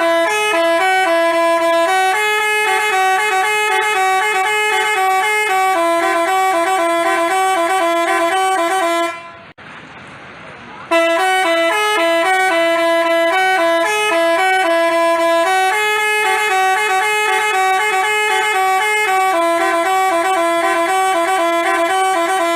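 Telolet basuri multi-tone horn playing a quick melody of changing notes. It breaks off about nine seconds in for a second and a half, then starts the tune again.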